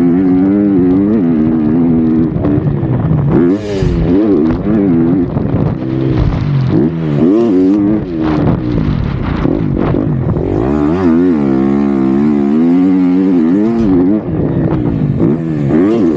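2023 KTM 250 SX-F's single-cylinder four-stroke engine revving, its pitch repeatedly rising and falling as the throttle opens and closes, with occasional bursts of hiss.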